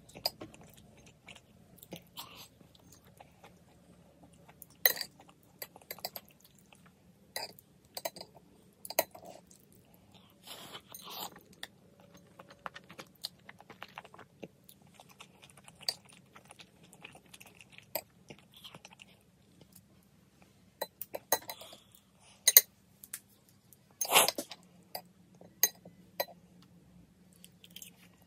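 Close-up eating sounds: chewing and slurping of spicy instant noodles and fried spam, broken by scattered sharp clicks of metal chopsticks in a ceramic bowl. The loudest slurp comes near the end.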